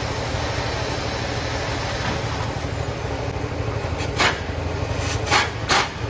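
Steady road and engine noise of a vehicle being driven, heard from inside the cab, with a deep rumble throughout. A few short hissing sounds come in the second half.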